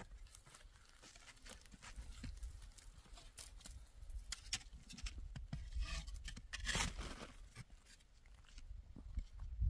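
Irregular scrapes, crunches and rustles over a low rumble, with a longer, louder scrape about seven seconds in.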